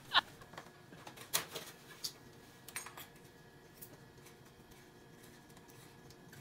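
Several light clicks and clinks of a pendant lamp's bulb and fitting being handled, spread over the first three seconds, then faint room tone.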